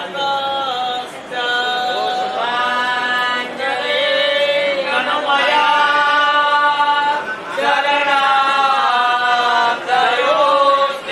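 Devotional mantra chanting sung in long held notes, the pitch gliding between them, with short breaks between phrases.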